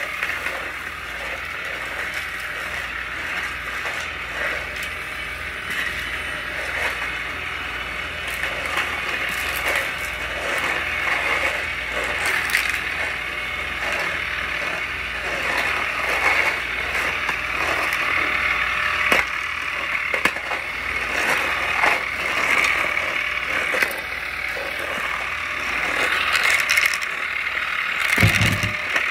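Cordless stick vacuum running steadily with a high motor whine, with grit and small debris clicking and rattling as it is sucked up off a concrete floor. There is a low thump near the end.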